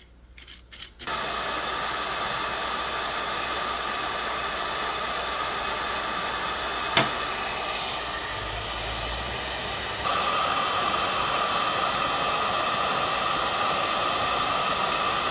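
Wagner hot-air heat gun switched on about a second in, blowing steadily with a faint whine, heating the solder to lift an EEPROM chip off a TV main board. It gets louder about ten seconds in, with one short click a few seconds before.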